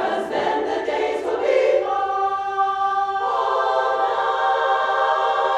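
Women's barbershop chorus singing a cappella in close four-part harmony. The voices move through a few notes, then hold sustained chords, changing to a new held chord a little past the middle.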